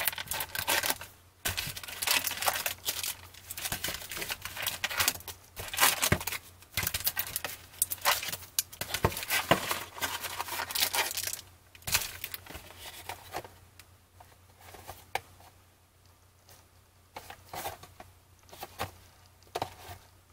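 Foil trading-card pack wrappers crinkling and rustling as a handful of packs is lifted out of a cardboard display box and stacked. The handling is busy for the first two-thirds, then thins to softer, occasional rustles and light knocks near the end.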